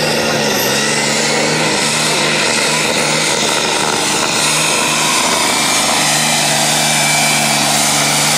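A pulling tractor's diesel engine running flat out under full load as it drags a weight-transfer sled, a loud steady engine note over rushing exhaust noise. The pitch sags briefly about halfway through, then holds steady again.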